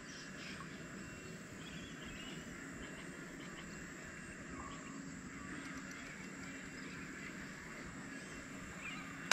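Faint riverside ambience with scattered distant bird calls, ending in a single short click.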